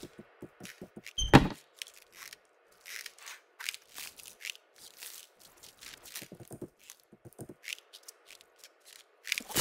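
Sound effects from a wordless CGI animated short film: a string of short clicks and knocks, with one loud thud about a second in.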